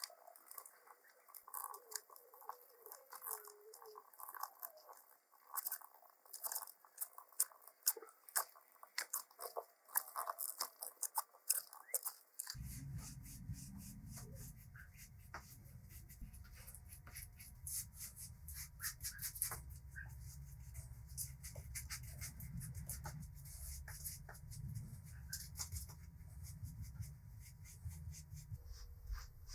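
Hand work on metal, with quick scratching, scraping and clicking strokes for about twelve seconds. Then a low steady hum starts suddenly and runs on under scattered lighter clicks.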